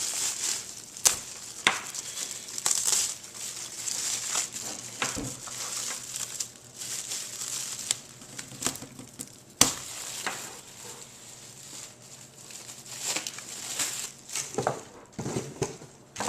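Packaging wrap crinkling and rustling as it is pulled off a new alarm clock, in uneven handling bursts with a few sharp clicks.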